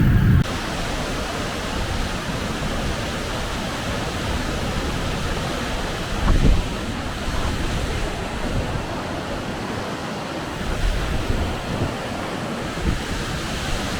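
Steady rushing of water, an even roar with no pitch to it, with a brief louder swell about six seconds in.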